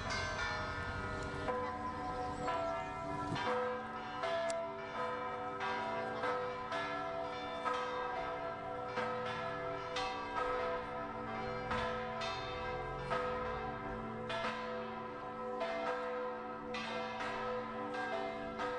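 Church bells pealing: several bells of different pitches struck one after another, about once or twice a second, each stroke ringing on and overlapping the next.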